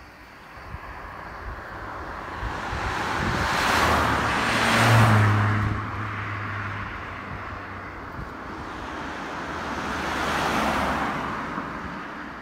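Two road vehicles drive past one after the other. The first is louder and carries a low engine hum, passing about five seconds in. The second passes near the end, its tyre and engine noise swelling and then fading.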